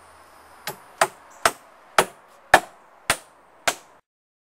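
Hand hammer striking seven times at a steady pace of about two blows a second, the first blow lighter, with sound cutting off abruptly after the last.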